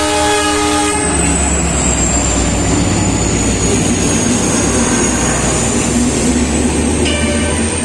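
Train horn that cuts off about a second in, then the steady rumble of the Kalka Express's passenger coaches passing close by, with a thin high whine over it.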